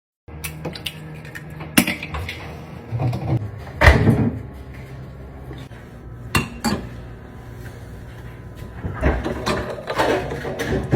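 Irregular knocks, clicks and clattering of hard objects being handled, the loudest strikes about two, four and six and a half seconds in, with a cluster near the end.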